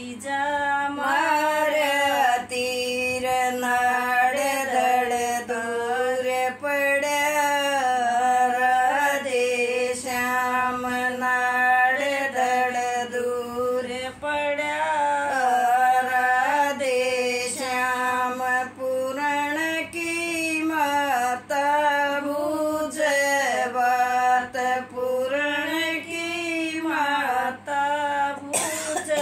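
Elderly woman singing a folk song about a brother and sister, unaccompanied, in long wavering phrases broken by short breaths.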